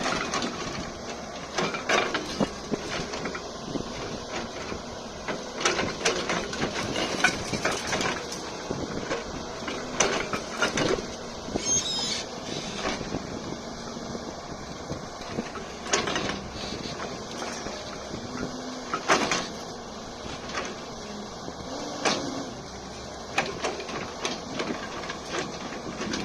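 Excavator at work: its engine runs under irregular clanks and knocks every second or two, with a few short low whines in the second half.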